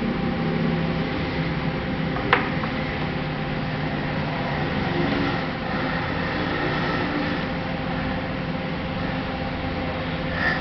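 Steady mechanical whir with a constant hum running under it, and one sharp click a little over two seconds in.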